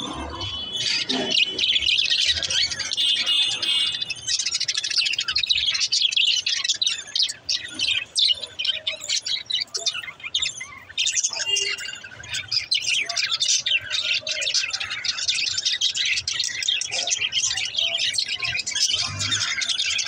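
A flock of budgerigars chattering: many birds twittering and chirping at once in a dense, continuous chorus.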